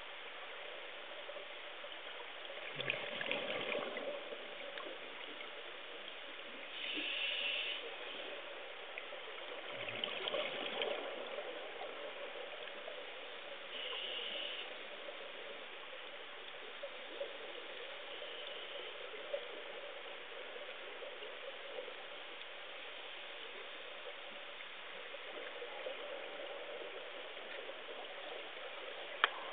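Water in a fish tank heard through a submerged camera: a steady muffled wash with a faint hum, swelling briefly several times, with a single click near the end.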